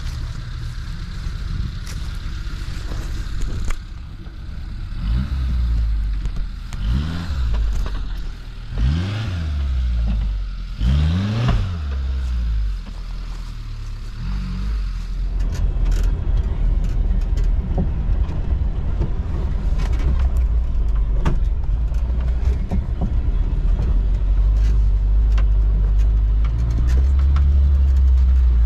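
Suzuki Samurai 4x4 engine revved hard four times in quick rising-and-falling bursts as it works through muddy ruts. It is followed by a louder, steady engine drone inside the cab of an off-roading Suzuki, with rattles and knocks over the ground.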